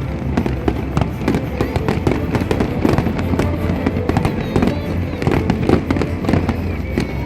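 Fireworks going off in a dense, continuous barrage of rapid bangs and crackles, with music playing underneath.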